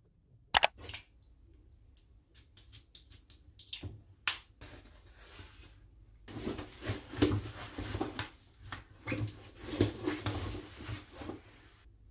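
A few sharp clicks and taps, the loudest about half a second in, then several seconds of uneven rustling and shuffling handling noise.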